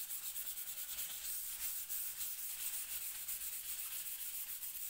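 Hand sanding a stained walnut tabletop with a small abrasive pad: a scratchy hiss in quick, even back-and-forth strokes.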